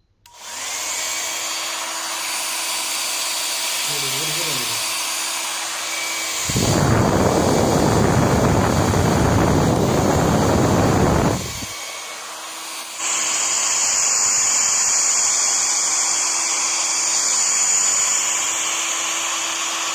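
Philips HP8100/60 1000 W hair dryer switched on, its motor and fan running with a steady whine and rushing air. In the middle a louder, deeper rush lasts about five seconds, and the sound changes again about two-thirds of the way through.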